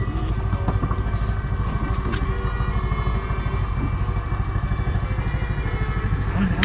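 Fishing boat's engine running steadily with a fast, even beat, with a few faint knocks on the deck.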